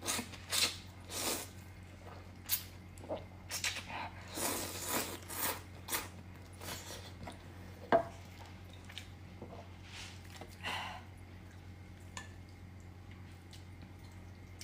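Close-miked eating of noodles: irregular bursts of slurping and chewing, with one sharp clink of a utensil against a bowl about eight seconds in.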